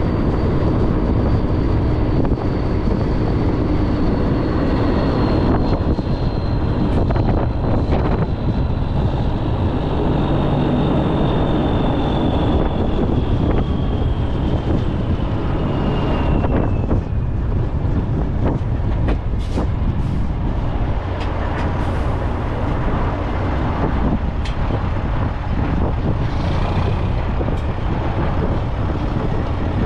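Heavy tow truck running on the road, a loud steady engine-and-road rumble. A high whine slowly falls in pitch through the first half, and a few sharp clicks come in the second half.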